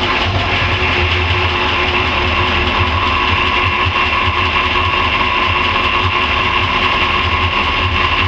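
Volvo Penta 5.0 GI V8 inboard engine idling steadily, freshly started. It runs smoothly, and the seller says it runs great.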